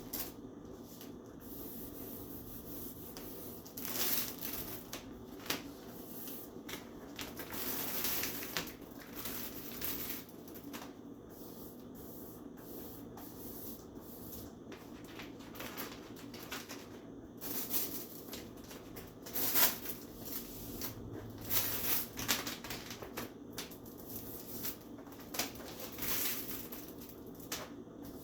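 Contact paper being handled, with irregular bursts of rustling and crinkling of the plastic sheet and scattered small clicks and taps.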